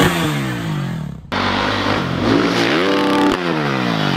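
Dirt bike engine revving up, then dropping in pitch as the throttle is let off while the bike is in the air. This happens twice, and the first one breaks off suddenly about a second in.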